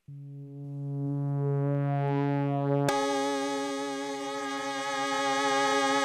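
Moog Muse analog polyphonic synthesizer holding a sustained chord that grows gradually brighter. About three seconds in, it changes suddenly to a brighter, wavering string-pad sound, the Kosmischestrings factory patch.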